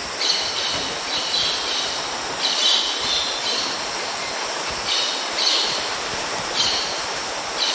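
Steady rushing of a tall jungle waterfall, with high, shrill calls coming in over it about once a second.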